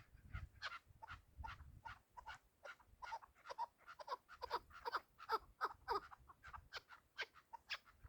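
Chukar partridges calling: a rapid run of short clucking notes, several a second, busiest in the middle.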